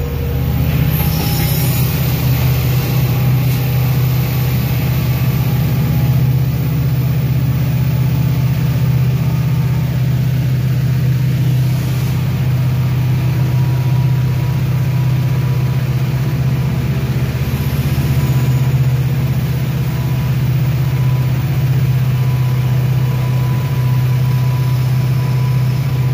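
EMD diesel-electric locomotive heard from inside its cab running through a tunnel: a loud, steady low engine drone with the rumble of the train running beneath it.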